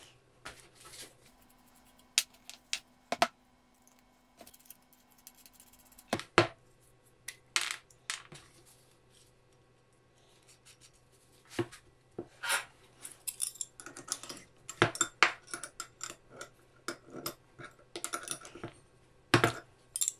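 Small metal parts clicking and clinking as a collet and collet nut are handled and fitted onto a DC spindle motor's shaft, then open-end wrenches knocking together. Scattered sharp clicks, sparse at first and much busier in the second half.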